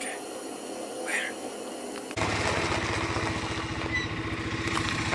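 Low hiss with a short breathy sound about a second in, then an abrupt change about two seconds in to a vehicle engine idling with an even low pulse.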